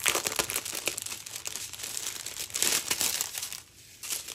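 Clear plastic packaging crinkling as it is handled, a busy run of crackles that stops for a moment near the end.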